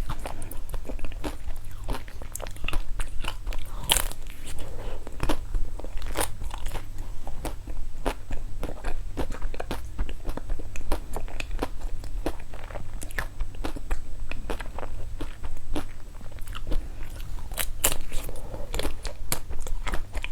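A person biting and chewing crunchy candy: a long run of sharp, irregular crunches and crackles over a steady low hum.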